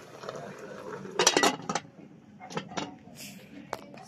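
A metal lid clattering onto a metal cooking pot: a burst of rattling clinks about a second in, then a few lighter clicks as it settles.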